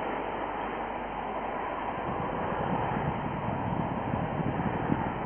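Wind buffeting the microphone over a steady distant rushing roar, the gusts growing stronger near the end.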